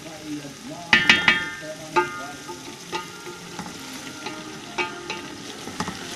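Spatula stirring chicken and onions frying in a large metal cooking pot: a sizzle underneath, with sharp ringing clinks as the spatula strikes the pot, three quick ones about a second in, then single clinks about once a second.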